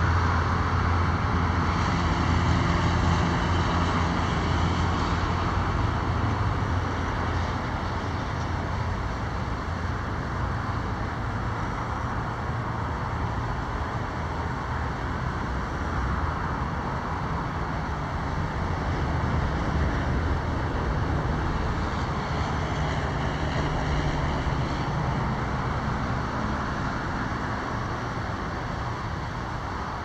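Road traffic noise, a steady hum of vehicles passing, louder near the start and again about twenty seconds in.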